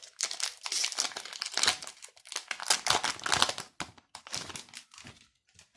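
Foil trading-card booster pack wrapper being torn open and crinkled by hand, a dense crackle of crinkles that thins to a few scattered rustles near the end.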